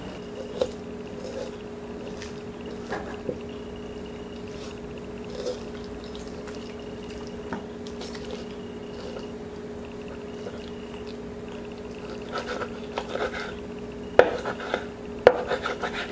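Kitchen knife working along a raw chicken thigh bone on a wooden cutting board: sparse light clicks and scrapes, growing busier with sharper knocks in the last few seconds. A steady hum runs underneath.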